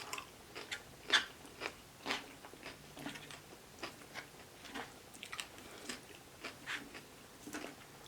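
Close-up chewing and biting of a mouthful of food, heard as quiet, irregular wet clicks and crunches about twice a second.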